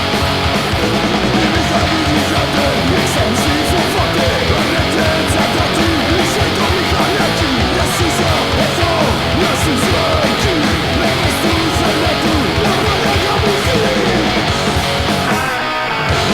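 Punk rock song played from a vinyl record: a full band with distorted electric guitars, loud and driving. Near the end the sound thins out briefly.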